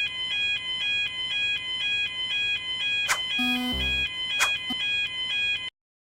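Electronic railroad-crossing warning bell, a repeating ding about three strokes a second. Two quick rising swishes and a short falling run of tones with a low thud come in about three to four seconds in. The whole sound cuts off suddenly near the end.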